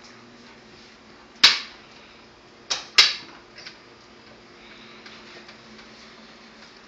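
Sharp clicks of a door's deadbolt and knob latch as the door is unlocked and pulled open: one click about a second and a half in, then two close together about three seconds in.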